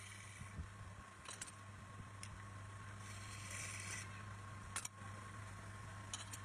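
A steady low hum with a few short, sharp clicks or taps over it.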